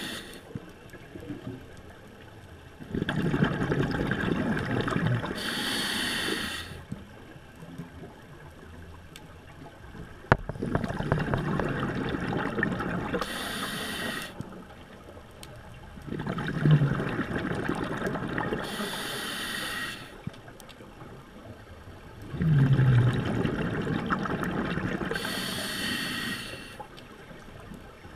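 A diver breathing through a scuba regulator underwater: about four breaths, each a long rush of bubbling, hissing noise, with quieter gaps between them every six seconds or so.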